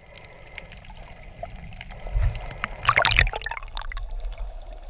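Water sloshing and bubbling as picked up by a camera held underwater while snorkelling, with scattered crackles and a louder burst of bubbling about three seconds in.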